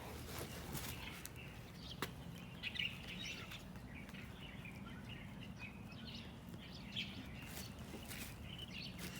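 Faint, scattered bird chirps over a steady low hum, with a single sharp click about two seconds in.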